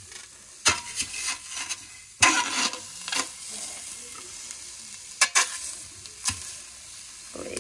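Raw chicken drumsticks laid one after another into a preheated stainless steel Saladmaster MP5 pot. Each piece sets off a sudden sizzle that fades over a second or so, several times in a row, over a low steady hiss from the hot pan.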